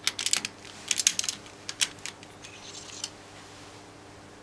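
Sharp metallic clicks and clinks of a T-handle chuck key worked in a lathe chuck holding an engine valve for measurement. A quick cluster of clicks comes in the first second and a half, then a few single clicks.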